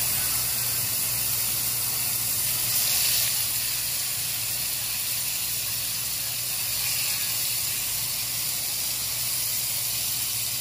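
Raw marinated pork chops sizzling in hot oil in a nonstick frying pan, a steady hiss that swells briefly about three seconds in as more chops are laid in.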